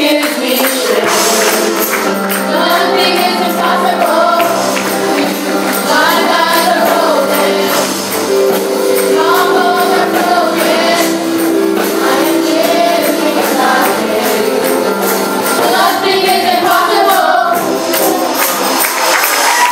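A boy singing a gospel song into a handheld microphone, in phrases with held, wavering notes, over church band accompaniment with sustained chords and a tambourine shaken steadily in time.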